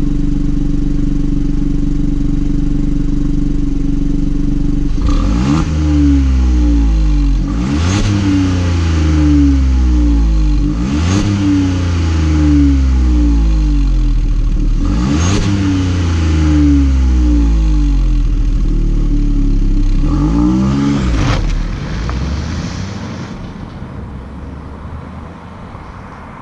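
Skoda Rapid 1.0 TSI three-cylinder turbo petrol engine heard at the exhaust. It idles steadily, is revved five times, each rev rising sharply and dropping back to idle, then fades away over the last few seconds as the car pulls away.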